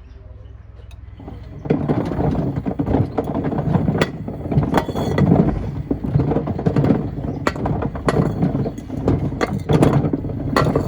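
Wood and stones clattering and knocking irregularly inside a Miele washing machine's turning drum, starting about one and a half seconds in after a low hum.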